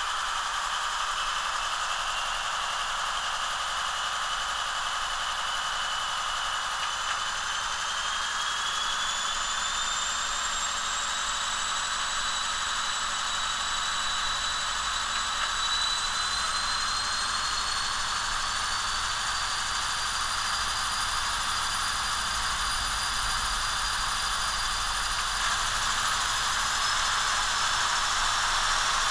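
Simulated diesel prime mover of a Siemens SC-44 Charger (Cummins QSK95) from a TCS WOWSOUND decoder, played through an N scale model locomotive's small speaker, running steadily. A high turbo-like whine over it steps up in pitch several times as the throttle is notched up.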